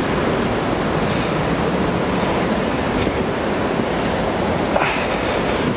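Steady rushing of fast-flowing water in a gorge, with a short click about five seconds in.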